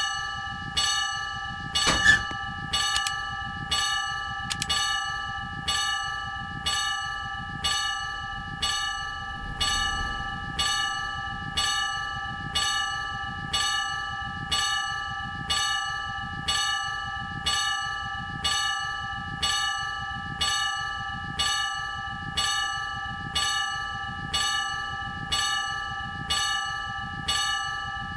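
Railway level crossing warning bell ringing steadily, one ringing strike about every second. A sharp knock about two seconds in stands out above the bell.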